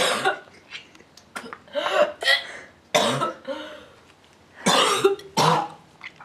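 A person coughing hard in several bouts, choking and spluttering after trying to swallow a mouthful of ground cinnamon.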